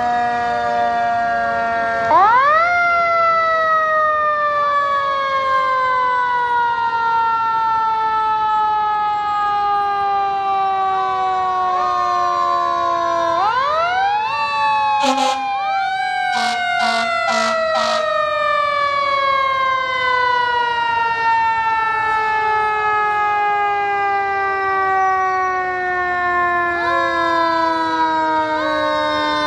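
Several fire engines' sirens wailing together, overlapping. Each one rises quickly in pitch, then slides slowly down over many seconds before being wound up again. Around the middle comes a burst of about five short horn blasts.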